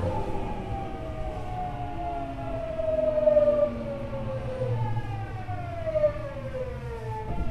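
Hitachi GTO-thyristor VVVF inverter and traction motors of a Tokyu 9000 series electric train whining in several tones that fall steadily in pitch, over the rumble of wheels on rail, heard from inside the car.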